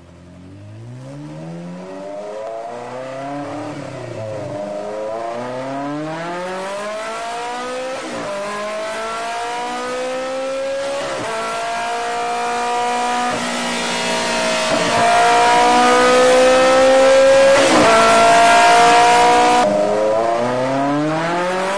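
Ferrari engine accelerating hard through the gears. The pitch climbs and drops back at each shift, several times over, then pulls long at high revs and grows louder. Near the end it drops and climbs again.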